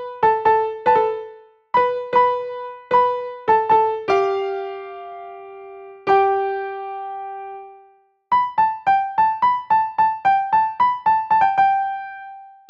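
A keyboard in a piano-like voice plays a slow single-note melody. Each note is struck and left to die away, with two notes held longer in the middle and a quicker run of notes in the second half. The melody stops briefly twice.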